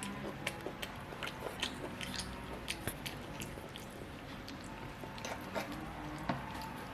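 A child eating a freshly cooked chicken and vegetable stir-fry: quiet chewing with many scattered light clicks.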